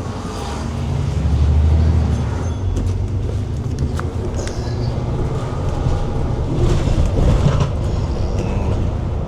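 Riding inside a bus: a low engine and road rumble that swells about a second in, with a few clicks and rattles from the cabin.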